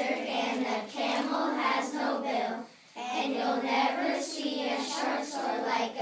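Children's voices in chorus, delivering a rhyming verse in short rhythmic phrases, with a brief pause between lines about three seconds in.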